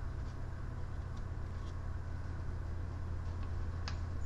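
Steady low electrical hum, with a few faint ticks and one sharper click near the end.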